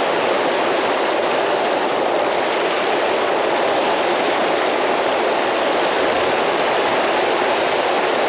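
Steady rush of a creek flowing over rocks, loud and even with no breaks.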